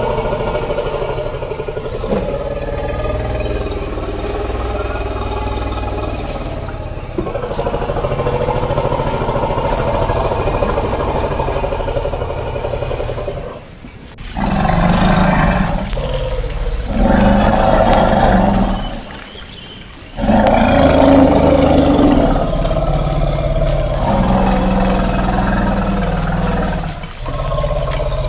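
Elephant calls: a steadier low stretch for the first half, then about halfway a new recording starts with a series of four loud calls, each two to three seconds long with short pauses between them.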